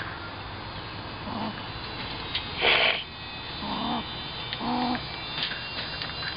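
A grey squirrel caught in a wire cage trap calling: three short, low, pitched calls, with a louder rough burst a little under three seconds in. These are the noises of an agitated trapped squirrel.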